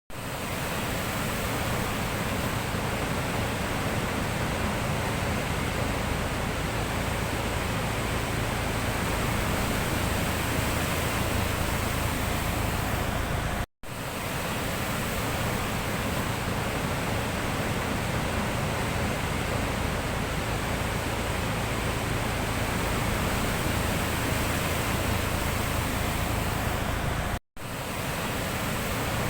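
Sea surf making a steady, even rushing noise, cutting out for an instant twice.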